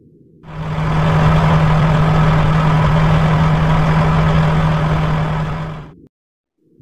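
Bulldozer's diesel engine running at a steady speed, fading in about half a second in and fading out near the end.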